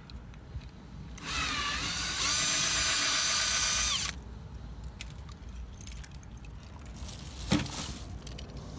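Small electric drill drilling into a die-cast toy car: the motor whines up in pitch, holds steady for about two seconds and stops suddenly. A single sharp click follows near the end.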